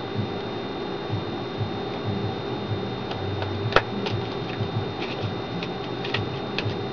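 Scattered small clicks and soft taps from handling a mobile phone, with one sharper click near the middle and a quick few near the end, over a steady low electrical hum.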